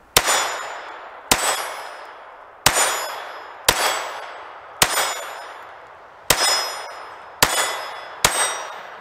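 Ruger LCP II Lite Rack pistol firing .22 LR rounds: eight sharp shots at an uneven pace of about one a second, each followed by a ringing tail that dies away before the next.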